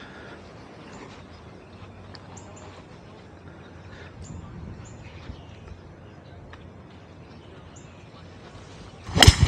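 A hybrid club strikes a golf ball off the tee with one sharp crack near the end. Before it there is a quiet stretch of open-air ambience with faint, brief bird chirps.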